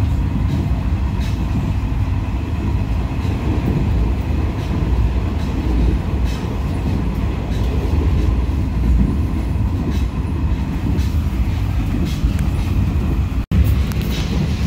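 Passenger train running on the rails: a steady low rumble with faint, irregular clicks from the wheels and track. The sound drops out for an instant near the end.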